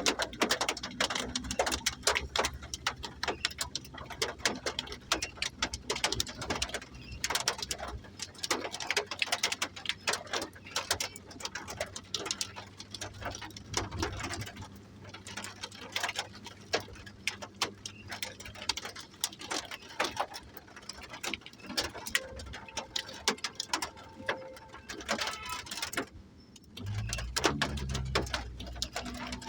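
Thunderstorm rain: dense, irregular ticks of heavy drops striking a hard surface. A low rumble runs underneath at the start and swells again near the end.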